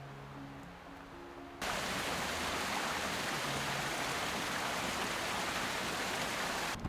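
Steady rush of flowing water, a stream or waterfall, cutting in sharply about a second and a half in. Before it, a short quieter stretch with a few faint low held tones.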